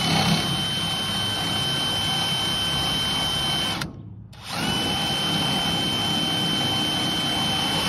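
Cordless drill driving a 24-to-1 gear-reduction crank on a trailer's square tongue jack, running steadily with a thin high whine as it winds the jack to lift the trailer tongue. It stops for about half a second near the middle, then starts again.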